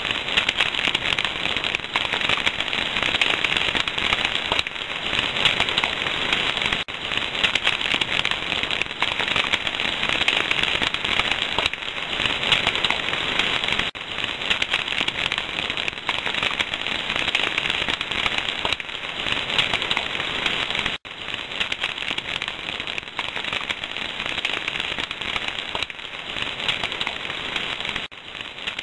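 Large fire crackling and popping densely and without pause as it burns the wreckage of a crashed helicopter.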